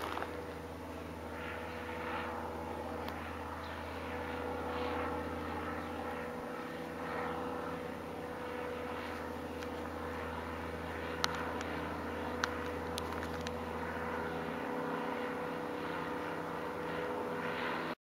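Steady drone of a powered ultralight trike's engine and propeller flying overhead. The deepest part of the hum drops away about three-quarters of the way through.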